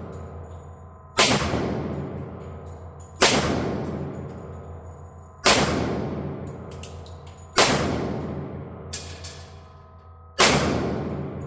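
Five pistol shots from a Tisas D10 1911 in 10mm firing Underwood 180-grain ammunition, spaced about two seconds apart, each with a long echoing tail.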